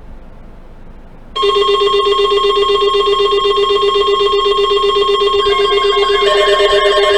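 Faint radio hiss, then about a second and a half in a loud steady electronic tone cuts in and holds. About six seconds in, a shifting electronic melody joins it.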